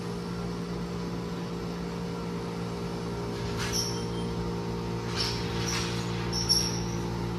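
Steady hum of an electric motor running, with a few light clatters about halfway through and again later.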